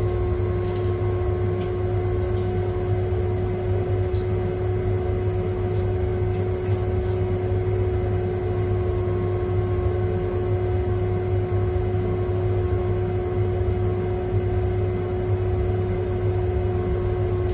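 Electric potter's wheel motor running at a steady speed: a constant low hum with a steady higher whine over it, unchanging throughout.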